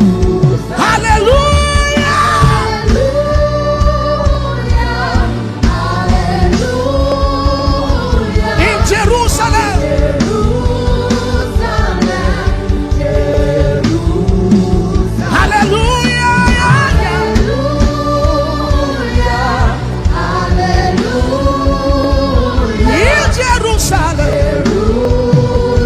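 Gospel worship music: a voice sings long, held phrases over a steady beat, the phrase repeating about every seven seconds.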